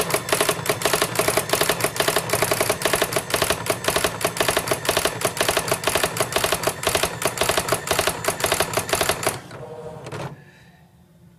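Dot-matrix printer printing: a fast, even stream of mechanical clicking that stops about nine and a half seconds in.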